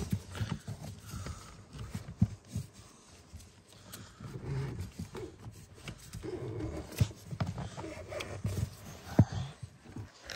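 Irregular rustling, clicks and knocks of gloved hands working the wiring under a car's dashboard, with low bumps from the handheld camera being moved about.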